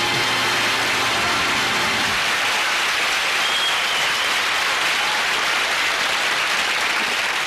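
Audience applauding at a steady level, with the last held notes of the band's closing music dying away about two seconds in.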